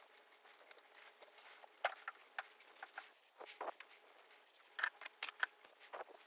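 Faint, scattered light clicks and taps of chopsticks and a metal fork handling food as a slice of ham is rolled and tucked into a wooden bento box, with a small cluster of clicks about five seconds in.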